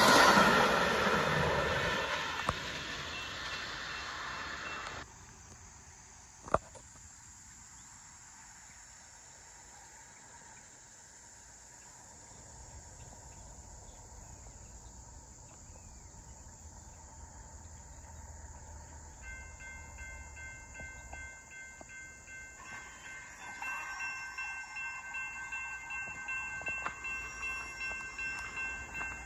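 An Amtrak passenger train's last cars roll past over the rails, and the wheel clatter fades away over the first few seconds. Then it is quiet apart from a single sharp click. In the last third a faint, steady, high ringing tone comes in, pulsing gently.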